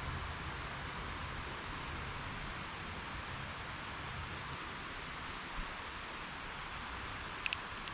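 Steady hiss of outdoor background noise, with a low rumble fading over the first few seconds and two quick sharp clicks near the end.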